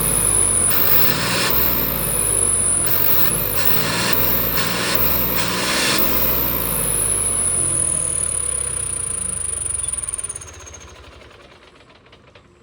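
John Deere 5210 three-cylinder diesel tractor engine running through a Bullet motorcycle exhaust whistle fitted to its pipe, with several short bursts of bright hiss over the engine's rumble. About ten seconds in the engine is shut off and the sound dies away.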